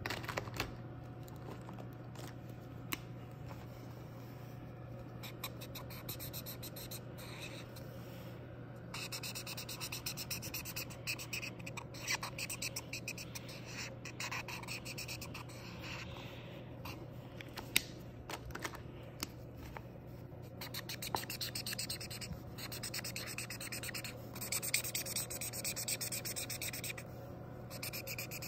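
Felt-tip marker scribbling quickly back and forth on paper while colouring in, in dense runs of strokes with short pauses and a few sharp clicks. A steady low hum runs underneath.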